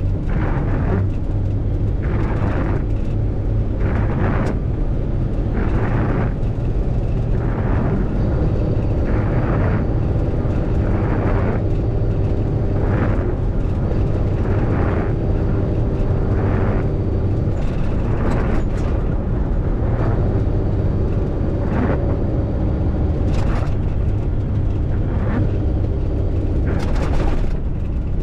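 MAN truck's diesel engine running steadily on the move, with a constant low rumble and wet road and wind noise. A short swish repeats about once a second throughout.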